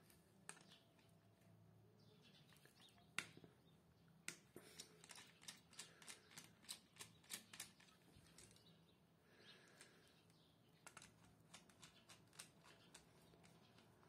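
Small sharp clicks of a screwdriver working the terminal screws of modular circuit breakers, with the plastic breaker housings and box handled: one loud click about three seconds in, then a quick run of about three clicks a second for a few seconds, and a few more near the end, over a faint low hum.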